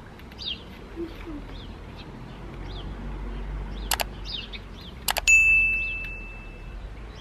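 Subscribe-button animation sound effect: a mouse click about four seconds in, a double click a second later, then a bell ding that rings out and fades over about a second and a half. Birds chirp in the background throughout.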